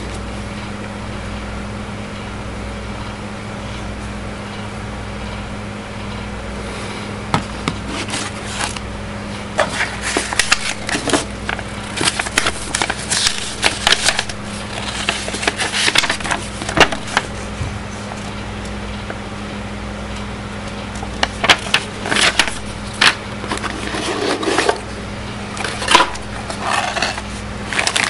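Paper and plastic packaging rustling and crinkling as it is handled and unwrapped, in irregular bursts starting about seven seconds in, over a steady low electrical hum.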